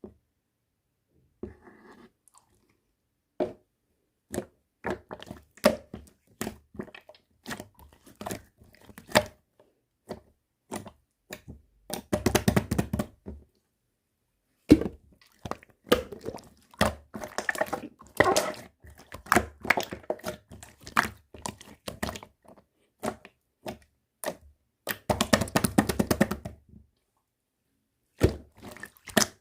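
Slime being pressed, poked and stretched by hand, making irregular sticky clicks and pops with short quiet gaps. Two denser stretches of crackling squishes come about twelve and twenty-five seconds in.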